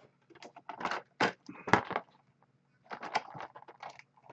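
Handling noise as a plastic action figure is set against its cardboard toy packaging: short crackles, taps and rustles in two bunches with a pause of about a second between them.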